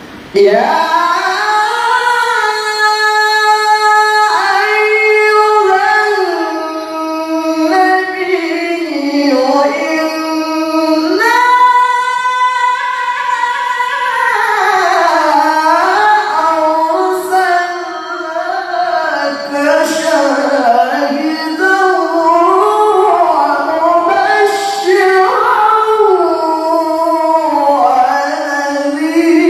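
A male qari reciting the Quran in melodic tilawah style. It is one long, high, ornamented phrase of held notes that slide up and down in pitch, and it begins abruptly just after the start.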